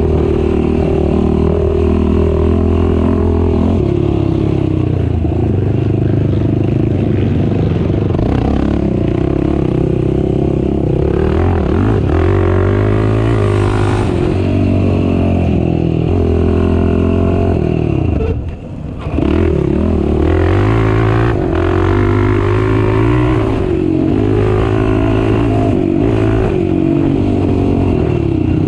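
Race ATV engine revving hard, its pitch climbing and falling again and again through gear changes and throttle. The engine note drops off briefly about two-thirds of the way through, then pulls again.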